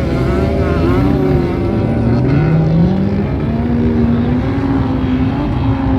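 Off-road vehicle engines running hard in desert sand, revving so the pitch rises and falls, with one clear climb in pitch a couple of seconds in.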